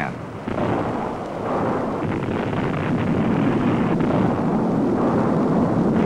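Rumble of a dynamite blast and falling rock in a canyon: a continuous low rumble that slowly grows louder.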